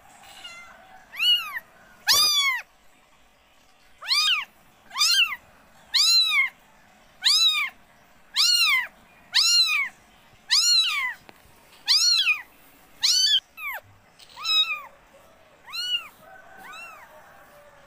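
Nursing kittens mewing: short, high calls, each rising then falling in pitch, repeated about once a second.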